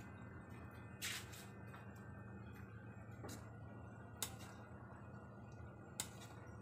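A ladle stirring and tossing chopped young jackfruit in a metal pot: a brief scrape about a second in, and sharp clicks against the pot about four and six seconds in. A low steady hum runs underneath.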